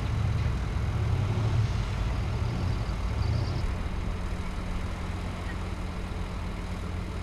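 Formula Offroad car engine running, with a steady low drone. A little under four seconds in it settles to a steadier idle.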